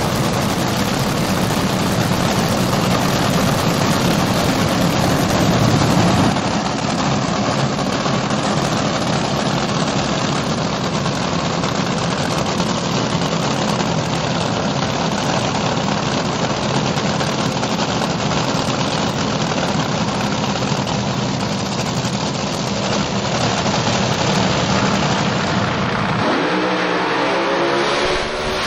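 Supercharged, nitro-burning engine of a front-engined AA/Fuel dragster running loud and steady at the starting line. About two seconds before the end its note changes sharply as the car launches and pulls away down the strip.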